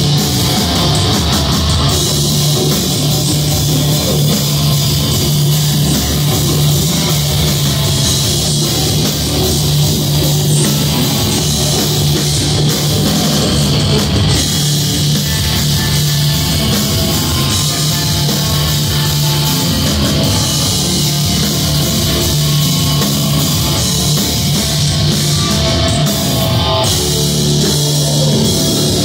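A metal band playing live: distorted electric guitars and a drum kit, loud and unbroken, heard from the crowd.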